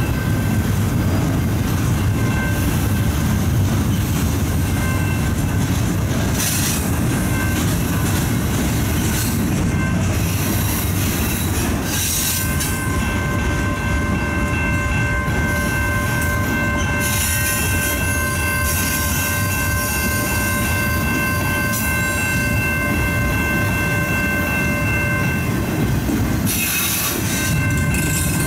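Canadian National freight train rolling past: a steady heavy rumble of wheels on rail, with high, steady wheel squeal that grows stronger about twelve seconds in, and short bursts of hiss now and then.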